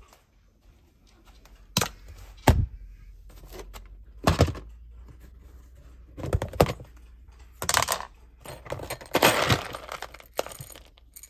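Plastic food tub and small metal scoop bowl being handled: a run of sharp knocks and clatters, then dry kibble rattling as it is scooped, about nine seconds in.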